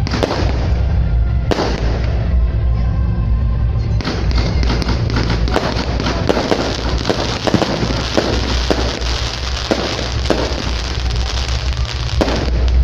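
Fireworks going off: a couple of sharp bangs, then from about four seconds in a dense run of crackling reports, with music playing under them.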